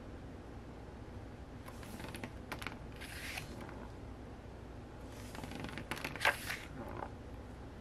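Glossy booklet pages being turned by hand: a string of short paper rustles and flaps, the loudest about six seconds in.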